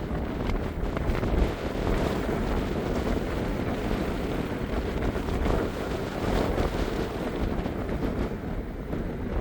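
Gusty wind buffeting the microphone, a steady low rumbling noise.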